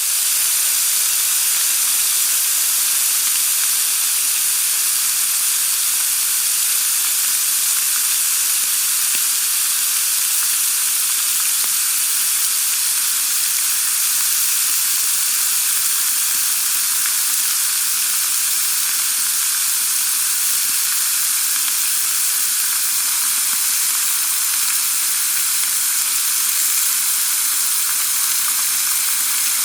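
Slices of pork belly (samgyeopsal) sizzling as they grill, a steady, even hiss of fat frying.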